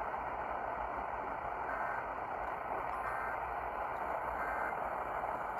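Steady hiss of radio static from a weather-radio receiver between broadcast messages, thin-sounding and even throughout.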